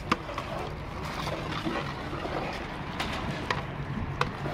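Beef and masala boiling hard in a large aluminium pot, a steady bubbling, hissing wash of steam. A metal ladle knocks sharply against the pot four times.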